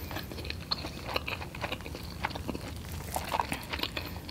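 A person chewing a mouthful of sausage, egg and cheese McGriddle close to the microphone, with irregular small mouth clicks and smacks.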